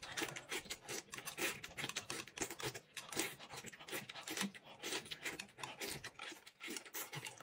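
Eating noises from food shovelled quickly off a plate held at the mouth with chopsticks: a fast, irregular run of slurping, smacking and chewing sounds, several a second.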